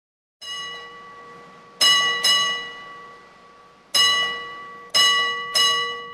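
A metal object struck six times at an uneven pace, each strike ringing out with the same clear metallic tone and dying away slowly; the first strike is softer than the rest.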